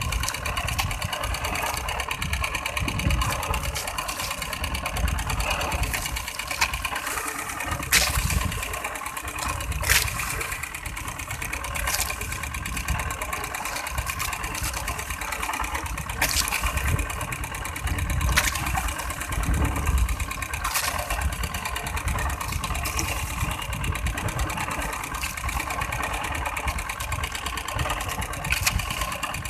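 Small outrigger fishing boat's engine running steadily under way, with a few sharp knocks now and then.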